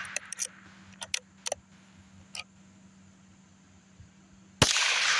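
Rossi RB22 .22 bolt-action rifle: the bolt is worked in a quick run of clicks between shots, then a single shot fires about four and a half seconds in, its report echoing.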